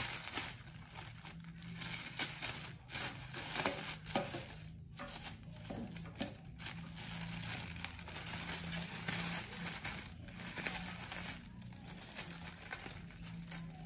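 Plastic courier mailer bag crinkling and crackling as it is handled and slit open with a utility knife, under a faint steady low hum.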